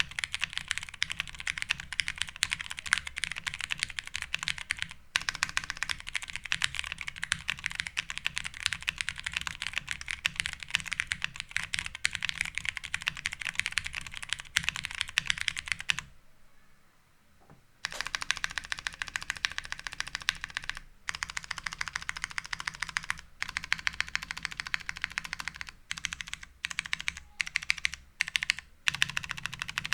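Mechanical keyboard typing: an OTD 356N MK2 with stock, unlubed vintage Cherry MX Brown switches on a polycarbonate half plate, with Cherry POM keycaps. It starts as fast, continuous typing, stops for about two seconds, then resumes with several short breaks between runs of keystrokes.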